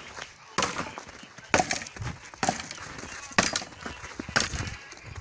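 Chopping blows into a dry dead log, five sharp strikes about a second apart, the wood splintering between them.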